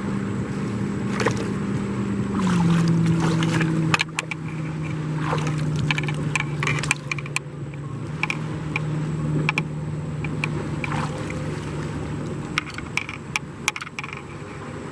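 A boat engine running steadily, dropping slightly in pitch about two and a half seconds in, with scattered small water splashes and drips.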